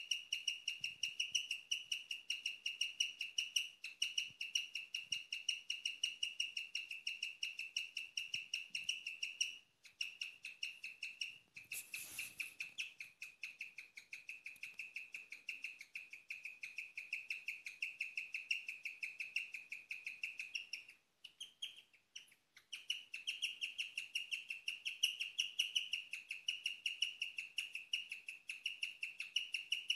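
Guinea pig chirping: a long, unbroken run of rapid, high, bird-like chirps. It breaks off briefly about 10 seconds in and again for a second or two about 21 seconds in. There is a short burst of noise about 12 seconds in.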